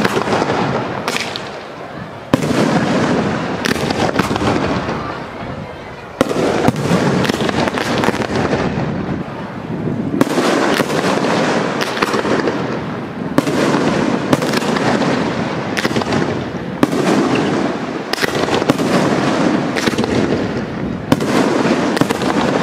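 Aerial firework shells bursting in quick succession: a loud bang every one to four seconds, each followed by a long rumbling echo, with smaller crackles between the big reports.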